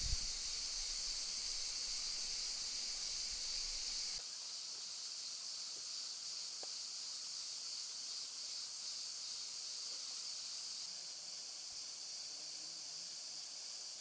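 Steady, high-pitched chorus of insects, most likely cicadas, with a slight drop in level about four seconds in.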